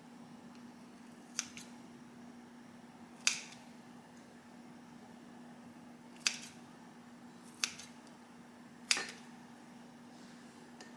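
Five sharp clicks, unevenly spaced a second or more apart, over a faint steady hum.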